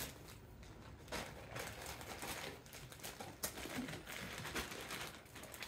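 Faint crinkling and rustling of plastic handled by hand in irregular bursts, with a sharp click about three and a half seconds in.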